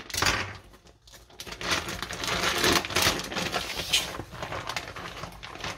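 Crinkling and rustling of a plastic vacuum-seal bag being pulled open and handled, in a run of irregular crackles.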